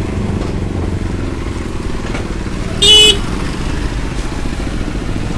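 Road traffic passing close by: a vehicle engine runs with a steady low rumble, and a vehicle horn gives one short toot about three seconds in.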